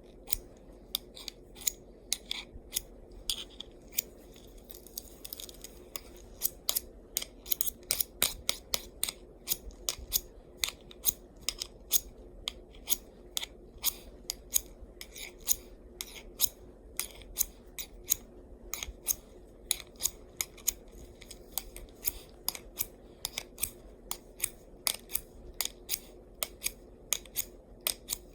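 Swiss Army knife blade making a long run of short, sharp snipping clicks, about three a second and unevenly spaced.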